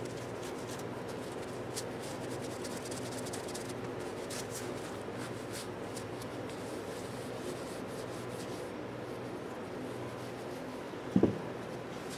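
Faint rubbing and handling of small hand tools over a steady low hum, with one short thump near the end.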